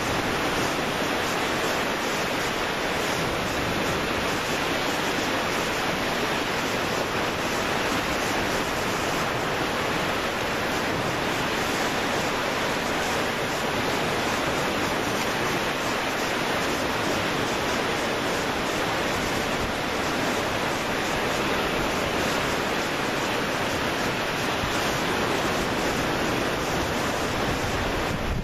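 Sea surf and wind: a steady, even rush of noise with no engine or other distinct sound standing out.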